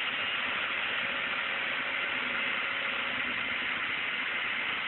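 Excavator's diesel engine running steadily at low revs, a constant hum under a hiss.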